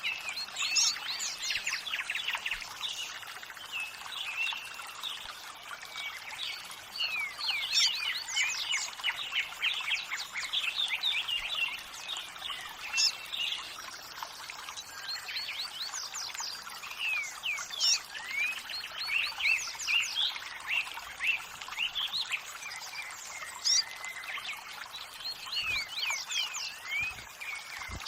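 Several birds chirping and singing busily in quick, overlapping calls over the steady rush of running water.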